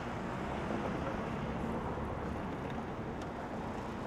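Steady outdoor background noise, an even low rumble and hiss with no single clear source.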